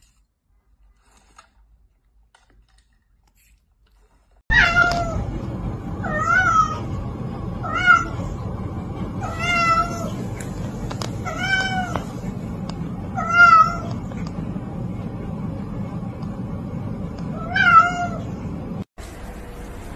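Domestic cat meowing repeatedly, about seven short calls a second or two apart that start about four seconds in, over a steady low background hum.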